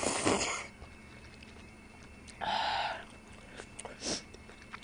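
Slurping seafood soup from a bowl held to the lips, with a second, shorter slurp about halfway through. Quieter chewing with small mouth clicks follows near the end.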